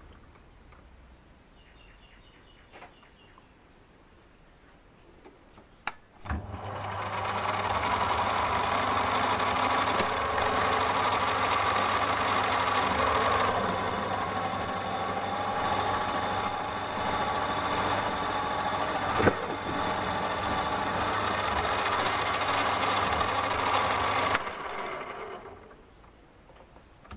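TORQ MB1910 mini lathe switched on about six seconds in, its motor and spindle running steadily with several whining tones for about eighteen seconds, then switched off and spinning down to a stop. Before it starts, a few light clicks from the chuck being handled.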